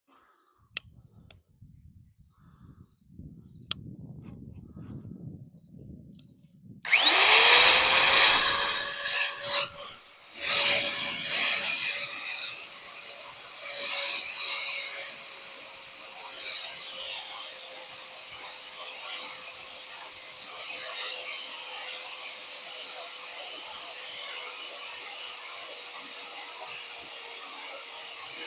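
Electric drill with a hole cutter boring through the steel flag pole. The motor spins up with a rising whine about seven seconds in and then runs as a steady high whine under the cutting noise, easing off for a couple of seconds midway and then cutting again. Faint handling clicks come before it starts.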